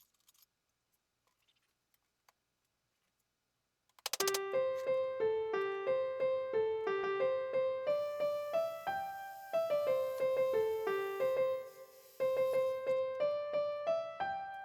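Near silence for about four seconds, then background piano music: a simple melody of evenly spaced notes.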